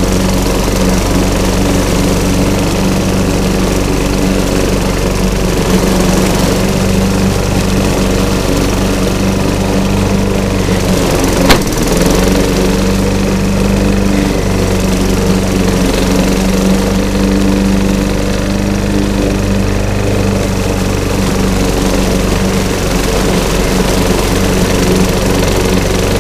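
Walk-behind lawn mower running steadily while mowing over fallen leaves. A single sharp crack about eleven and a half seconds in.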